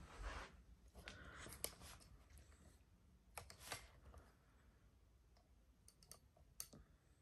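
Mostly near silence, broken by a few faint clicks and knocks as the recording phone is handled and set in place, the clearest about a second and a half in, around three and a half seconds in, and near the end.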